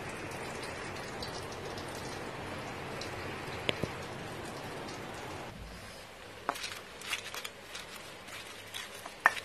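A pot of vegetable soup boiling with a steady bubbling hiss. About five and a half seconds in this stops, and scattered knocks and scrapes follow as a stone pestle crushes chillies and tomatoes in a stone mortar, with one sharper knock near the end.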